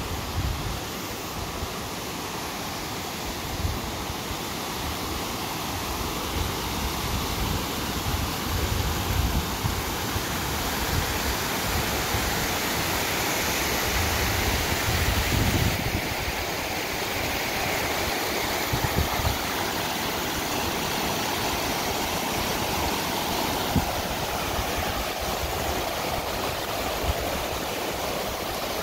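Spring water rushing steadily over shallow stone steps and a low rocky cascade, with irregular gusts of low rumble.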